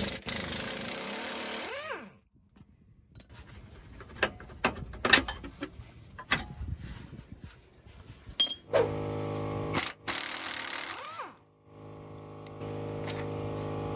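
Pneumatic impact wrench running in three bursts as it takes off the rear shock absorber bolts. The first burst lasts about two seconds at the start, the second about two seconds a little past the middle, and a steady run comes near the end. In between are scattered clicks and knocks of bolts and tools being handled.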